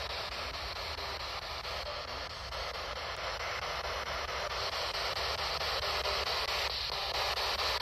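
Spirit box, a radio scanner that sweeps continuously through stations, giving out a steady hiss of static.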